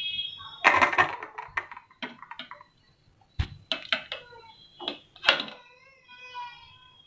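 Perforated steel skimmer clinking and knocking against an aluminium pot as boiled amla (Indian gooseberries) are scooped out of the water, a series of separate sharp knocks. A faint high wavering cry sounds in the background near the end.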